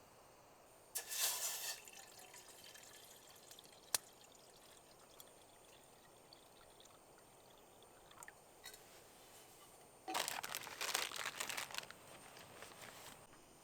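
Liquid being poured in two short spells, one about a second in and a longer one near the end, with a single sharp click in between.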